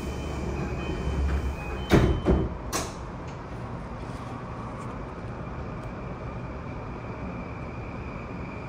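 Passenger doors of an E235-1000 series commuter train sliding shut, ending in a loud thud about two seconds in and smaller knocks just after, preceded by short electronic tones. A steady hum from the stopped train follows.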